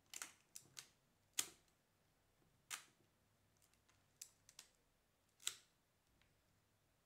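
Leica M4-2 rangefinder's film advance lever being wound and its shutter released, a string of sharp mechanical clicks, the loudest about a second and a half in and again near the end, as the freshly loaded film is wound on.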